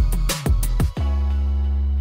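Background music: quick drum hits over the first second, then a long held low note from about halfway through.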